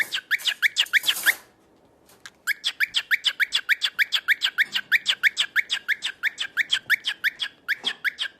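A bird giving fast runs of short, sharp chirps, about six a second. A first burst breaks off after about a second, and the chirping starts again a second later and keeps going.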